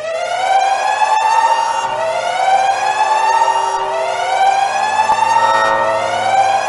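Emergency siren sounding a repeated rising sweep: each tone climbs, cuts back abruptly and starts again about every two seconds, three to four times over.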